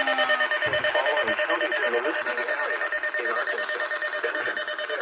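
Electronic alert alarm from a weather alert radio: a steady tone beeping rapidly, several times a second. A falling tone dies away just after it starts.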